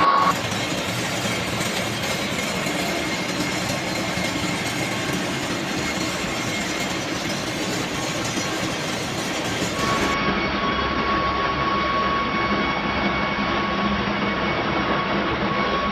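Steady machinery din of a ship's engine room: a continuous rumbling roar with no separate strokes. About two-thirds of the way through, a steady high whine joins it.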